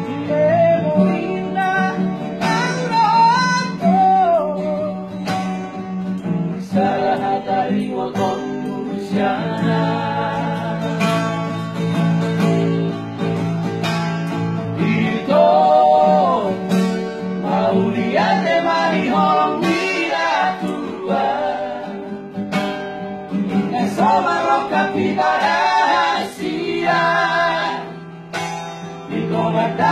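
Several men singing a Batak song together, accompanied by a strummed acoustic guitar.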